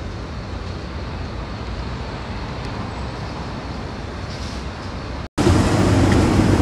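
Steady hum of road traffic, then after a cut about five seconds in, the louder, steady low rumble of a moving escalator.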